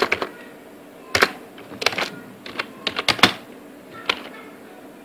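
Computer keyboard being typed on: short clusters of key clicks at an uneven pace, with pauses of up to about a second between clusters.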